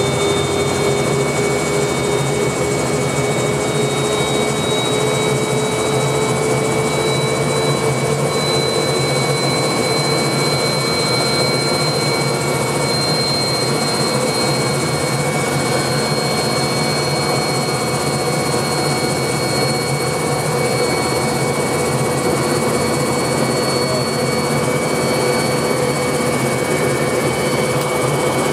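Enstrom 480B helicopter's turboshaft engine and rotor, heard from inside the cabin, running steadily with a whine that creeps slowly upward in pitch.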